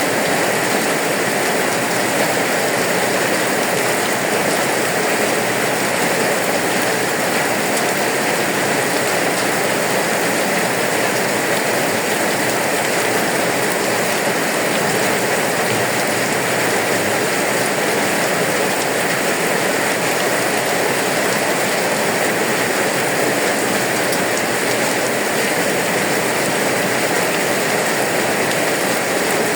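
Steady rain falling without letup, an even hiss of drops on surfaces.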